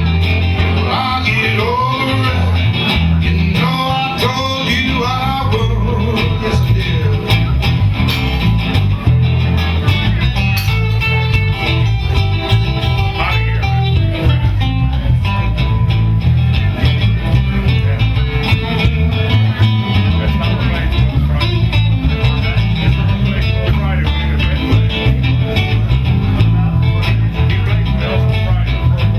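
Live blues band playing an instrumental passage of a slow blues: an electric guitar lead with bending notes, strongest in the first few seconds, over a steady bass and drums.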